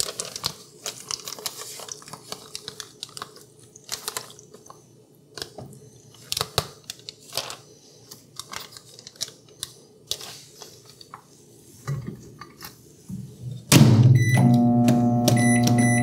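A spoon stirring and scraping in a plastic microwave-meal tray of mac and cheese: many small clicks and scrapes. Near the end there are a couple of knocks as the tray and door go in. Then, about 14 s in, the Toshiba air fryer microwave starts running with a steady low hum and a series of short electronic beeps.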